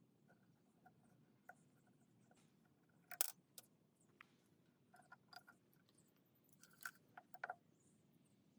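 Faint, scattered clicks and light clinks, some with a short ring, with one sharper knock about three seconds in and a small cluster of taps near the end.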